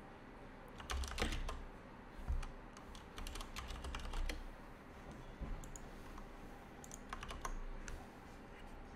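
Computer keyboard typing: scattered short bursts of keystrokes and clicks.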